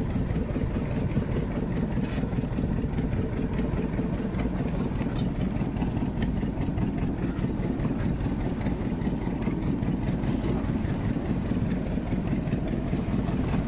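A fishing boat's engine idling, a steady low drone that does not change.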